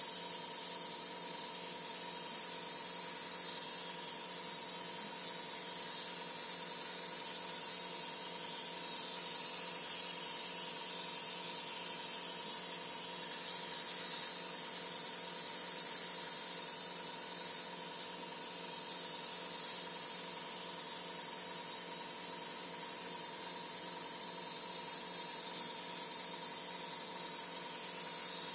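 Airbrush hissing steadily as it sprays paint, with a faint steady hum underneath.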